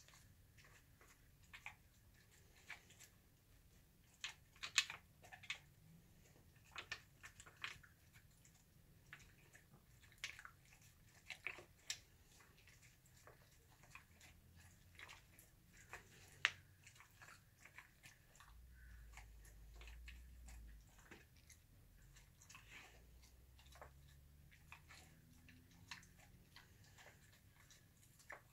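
A dog eating from a plastic slow-feeder bowl, crunching its food: irregular quick crunches and clicks, busiest in the first half and sparser later.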